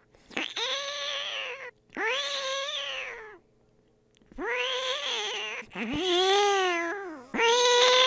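A person imitating cat meows with the mouth: a series of long meows, each rising then falling in pitch. Two come in quick succession, then after a pause of about a second three more follow, the fourth lower-pitched than the rest.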